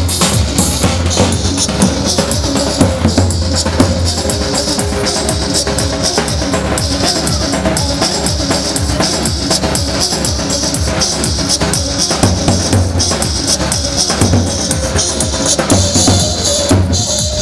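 Live Kurdish wedding dance music: a davul, a large double-headed drum, beaten in a steady driving rhythm over a sustained melody line.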